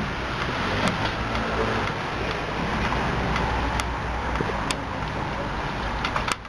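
Automatic roller car wash running: spinning bristle brushes and water spray make a steady wash of noise over a low machine hum, with a few sharp clicks.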